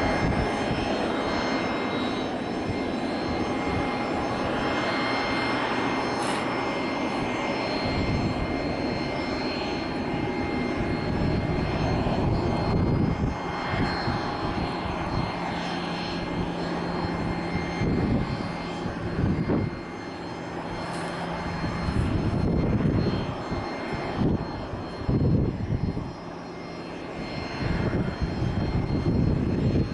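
Regional jet's turbofan engines running steadily, with a thin high whine over the roar. Wind gusts buffet the microphone in the second half.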